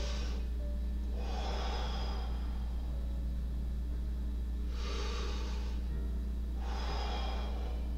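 A man taking slow, deep breaths in and out, four long breaths over a steady low hum.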